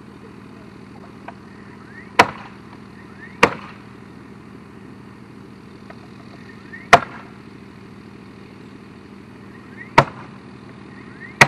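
Nails being driven into a wooden fence board and post: five sharp, separate strikes at uneven intervals, two close together near the start, then single ones spread out, the last near the end.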